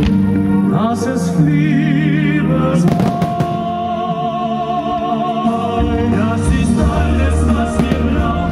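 Pyromusical soundtrack: music with a singing voice holding long notes with vibrato, and a deep bass line coming in about six seconds in. Firework shells crack over it a few times, most strongly about three seconds in.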